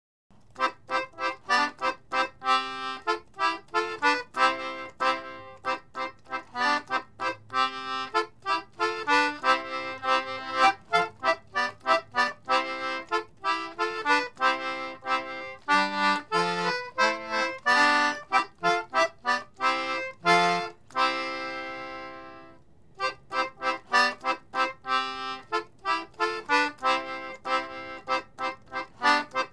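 Concertina playing a Christmas tune in short chords, with one long chord held and fading out about two-thirds of the way in before the playing starts up again.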